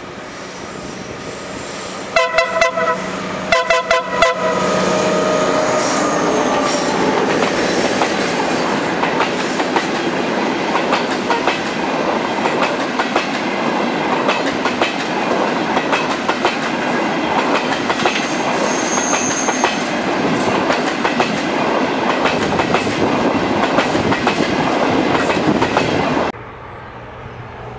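A passenger train's locomotive sounds two short blasts on its horn, then the train passes close by with a heavy rumble and its wheels clicking over the rail joints. The sound cuts off suddenly near the end.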